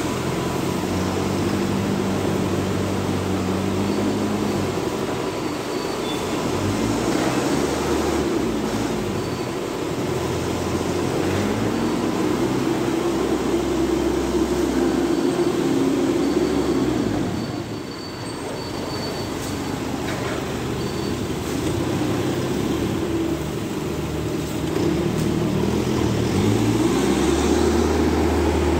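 Forklift engines running, revving up and easing off again and again as they lift and move loads. Near the end one engine comes up to a louder, steadier drone as a forklift drives in close.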